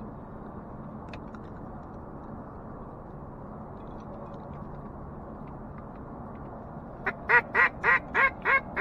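Hen-mallard-style quacks blown on a duck call to bring in approaching black ducks: a quick, evenly paced run about three a second, starting about seven seconds in, loudest at the start and tapering off. Before that there is only a faint steady wind hiss.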